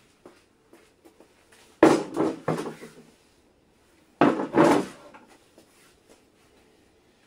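A car tyre on its steel wheel set down on a wooden table: two heavy thumps about two seconds apart, each knocking on for about a second, the second as the wheel is laid flat.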